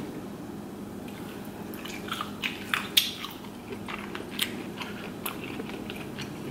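Close-miked eating sounds of a whole boiled lobster: chewing, with a scattering of sharp clicks and crackles, mostly between about two and five and a half seconds in, as lobster shell is picked apart by hand.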